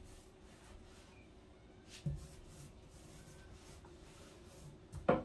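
Faint scraping of a paintbrush on a wooden kitchen cabinet, with a short knock about two seconds in and a louder one near the end.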